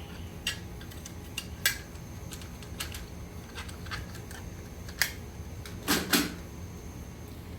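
Scattered sharp metallic clinks and knocks, about half a dozen, with a heavier double knock about six seconds in: hand tools and small engine parts being handled and set down.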